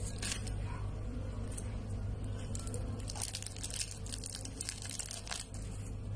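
Thin plastic wrapper crinkling and crackling as hands handle and unwrap a stick of modelling clay, busiest in the second half, over a steady low hum.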